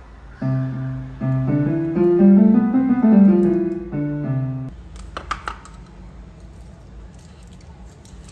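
Electric keyboard played in a piano voice: a short phrase of chords in the low and middle register lasting about four seconds, then it stops. A few light clicks or knocks follow just after.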